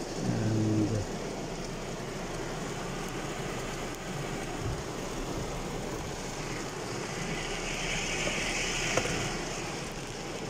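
Heavy rain beating on a car's roof and windscreen, heard from inside the cabin as a steady hiss that grows a little brighter and louder near the end. A single sharp click about nine seconds in.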